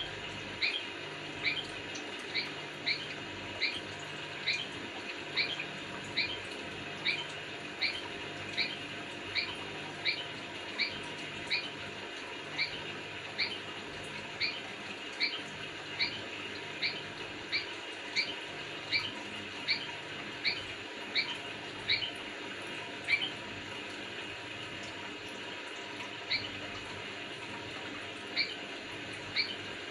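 Sooty-headed bulbul (kutilang) giving short, sharp chirps in a steady series about once a second. The chirps pause for a few seconds near the end, then start again, over a steady background hiss.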